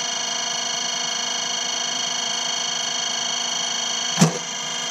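A baseball bat strikes a ball once, a single sharp crack about four seconds in. Under it runs a steady electrical hum with a high whine.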